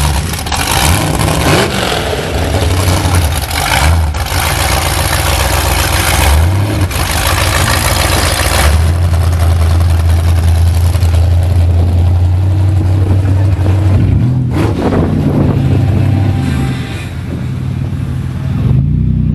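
Demolition derby car engines running loudly and revving as the cars move up the inspection line, with a steady low engine drone through the middle that eases off near the end.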